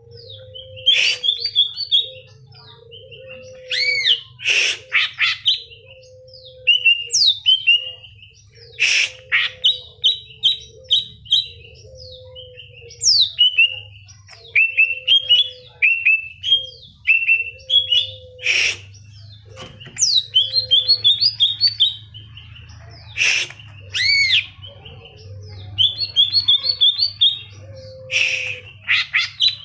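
Cucak ijo (greater green leafbird) singing: a varied song of rapid chirps, whistles and sweeping notes in bursts every second or two. A low steady note repeats beneath it in short segments.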